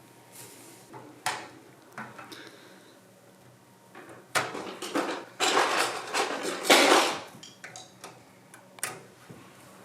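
Parts of a PC case being handled as its panels come off: a few sharp clicks, then about three seconds of loud clattering and scraping starting about four seconds in, and a last click near the end.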